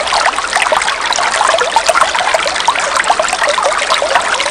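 Shallow stream babbling over rocks: a steady rush of water thick with small bubbling gurgles.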